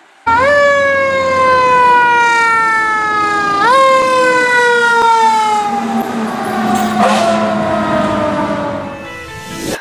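Fire engine siren wailing: the pitch jumps up quickly and then winds slowly down, twice. The slow coast-down is typical of a mechanical siren.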